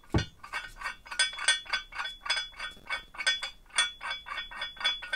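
Rapid runs of sharp metallic clicks with a slight ring, made by a hand tool as a bolt is wound into the freshly re-threaded welded nut on a steel tow bar bracket held in a vise. A dull knock sounds just as it begins.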